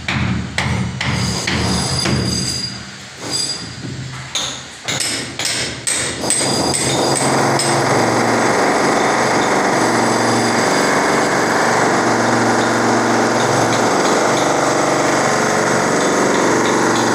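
Construction tool work: a run of sharp, irregular hammer-like strikes for about the first six seconds, then a loud, steady, unbroken machine noise.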